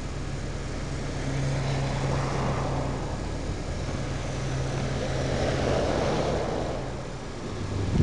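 Cars passing on a snow-covered street: the rush of tyres swells as one car goes by about two seconds in and a larger vehicle goes by about six seconds in, over a steady low engine hum.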